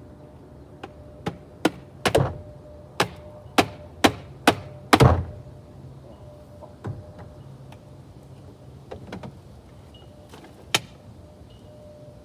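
Dirt Devil vacuum cleaner's dirt container being knocked repeatedly to shake out the old dirt: a quick run of sharp knocks, then a few scattered ones.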